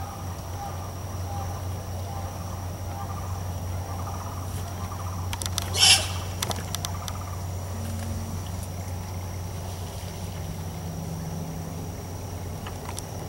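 A steady high insect drone over a low steady hum, with a sharp crackle about six seconds in and a few fainter clicks around it.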